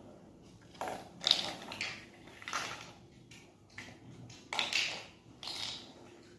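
Plastic toy building blocks clattering and clicking as they are handled and pressed together, in a string of short, irregular knocks.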